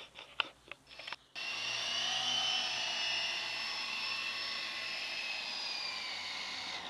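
A few short clicks, then, about a second and a half in, a steady whine from a Walkera CH46 tandem-rotor RC electric helicopter's motors and twin rotors spinning, its pitch drifting slightly lower.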